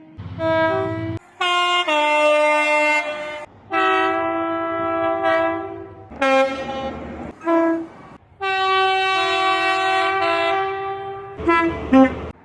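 A string of train horn blasts, each a steady chord of several tones. Short blasts and long blasts of two to three seconds follow one another with abrupt cuts between different horns, ending in a few quick short toots.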